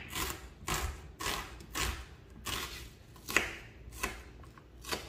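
Kitchen knife slicing half a red onion on a wooden cutting board: a run of crisp cutting strokes, each ending in a tap on the wood, about two a second.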